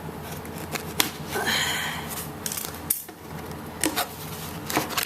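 Cardboard box being opened and its packaging handled: a few sharp clicks and knocks, with a short rustle about a second and a half in.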